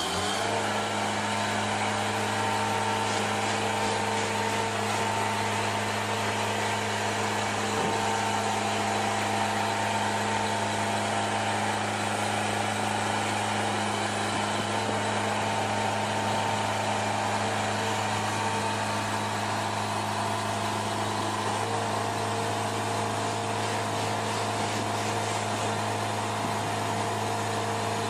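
Heavy diesel engine running steadily at a constant speed, an even hum that does not change.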